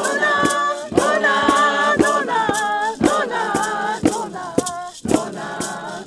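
A group of women singing together in an indigenous language, with a steady beat kept by hand, about two sharp strokes a second under the voices.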